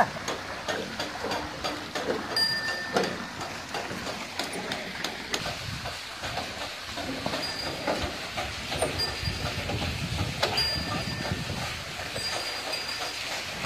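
Bullock-driven Persian wheel (rehat) turning: its chain of iron buckets rattles and clanks over the wheel while the lifted water pours out into the channel. Short high squeaks come now and then.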